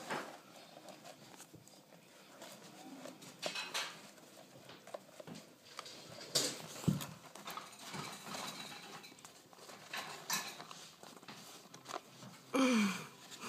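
Dachshund eating French fries: scattered soft chewing and lip-smacking sounds. Near the end comes a short sound that slides down in pitch, the loudest moment.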